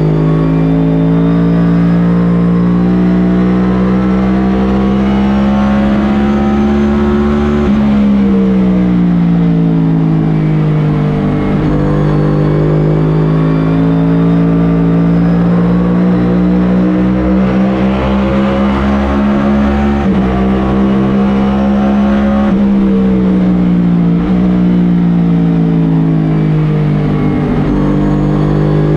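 Onboard sound of a NASCAR Cup Series car's V8 engine at race pace: the engine note climbs steadily along the straights and falls away twice, about eight and twenty seconds in, as the driver lifts for the corners, then climbs again.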